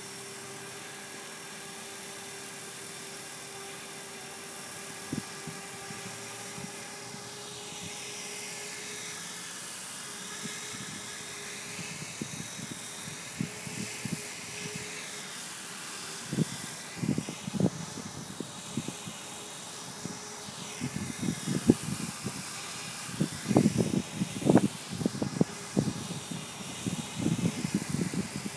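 E-flite Blade 450 electric RC helicopter hovering some way off: a steady whine from its motor and rotor, with a whoosh that sweeps up and down in pitch as it shifts about. From about halfway on, irregular low thumps come and go and are the loudest sounds.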